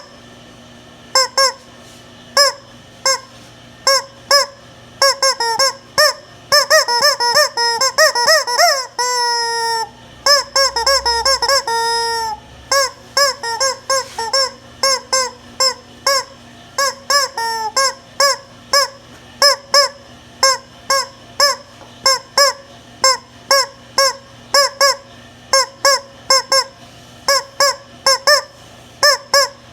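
Squeaky rubber toy chicken squeezed over and over, giving short honking squawks about one or two a second, with a quick run of squeezes and then two long drawn-out squeals midway.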